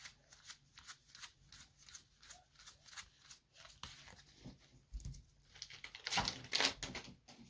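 Crinkling and tearing of a Magic: The Gathering Kaldheim draft booster pack's foil wrapper as it is ripped open, in quick crackly bursts, with a louder tear near the end.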